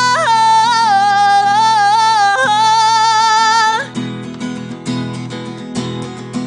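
A singer holds a long wordless note with a slight waver over strummed acoustic guitar; the voice stops about four seconds in and the guitar strumming carries on alone.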